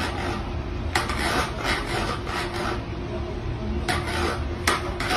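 Repeated scratchy rasping strokes, a few a second in irregular runs, over a faint steady hum.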